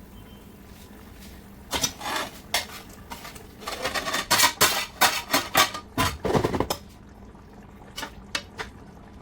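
Metal kitchen utensils clinking and scraping against a cooking pot and dishes: a quiet start, then a run of clatters from about two seconds in, and a few more clinks near the end.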